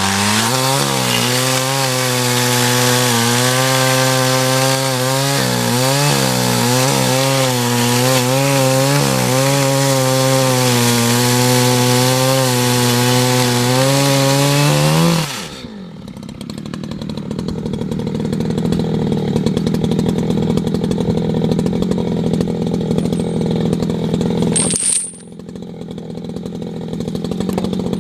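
Echo CS620 60cc two-stroke chainsaw at full throttle cutting firewood, its engine pitch dipping and recovering repeatedly as it takes load. About halfway through it drops to a lower, steady idle, with a brief dip and click near the end.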